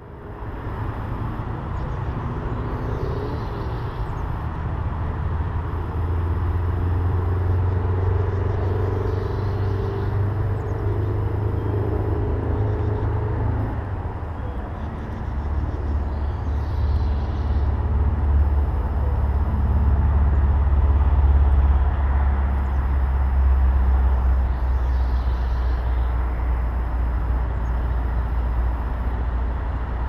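Low, steady rumble of an engine running, shifting slightly in pitch a few times.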